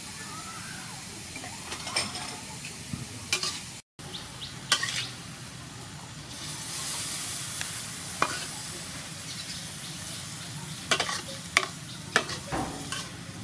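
Chicken gizzards and sliced lemongrass sizzling in a hot metal frying pan while being stir-fried, with sharp scrapes and knocks of the stirring against the pan now and then over a steady frying hiss.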